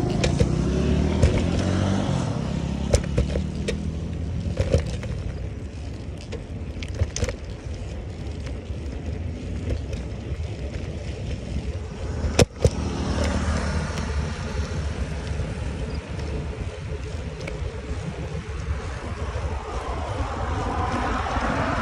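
Wind rumbling on the microphone and road traffic while a bicycle is ridden beside a busy road, with scattered knocks and rattles from the bike. One sharp knock comes about halfway through, and a car sweeps past near the end.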